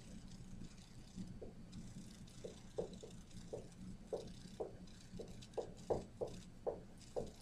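Dry-erase marker writing on a whiteboard: a string of short, irregular squeaks, one for each stroke of the pen.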